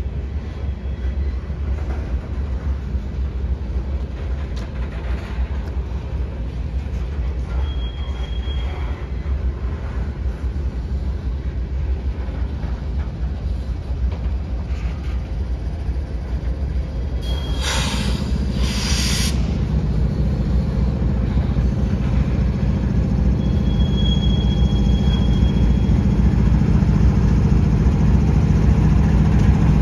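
Loaded freight train of covered hopper cars rolling past with a steady low rumble, with faint wheel squeals now and then and a loud high rush of noise about two-thirds of the way through. From then on a diesel locomotive's engine drone comes in and grows louder as a CSX locomotive in the train draws near.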